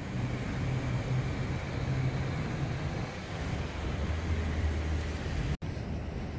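City street traffic noise: a steady wash of passing cars with a low engine hum that shifts lower partway through. The sound breaks off for an instant a little over five seconds in.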